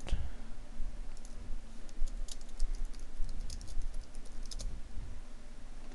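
Computer keyboard and mouse clicks, tapped in short scattered clusters over a low steady hum.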